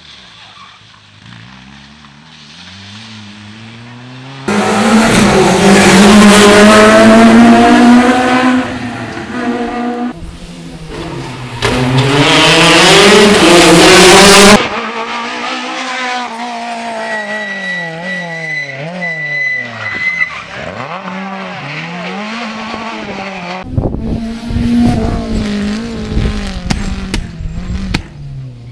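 Rally car engines revving hard, their pitch climbing and dropping again and again through gear changes. Two very loud close passes come between about 4 and 15 seconds in, and the sound cuts abruptly from one car to the next.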